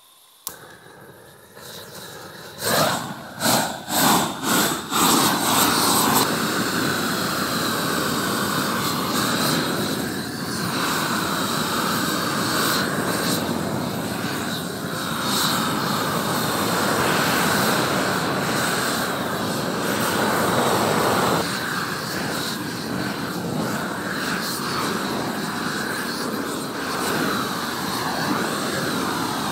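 Propane blowtorch with a long lance, fed from a gas bottle, lit and burning. There is a click about half a second in, a handful of quick surges over the next few seconds as the flame comes up, then a loud, steady rush of burning gas as the flame is played over the OSB floor.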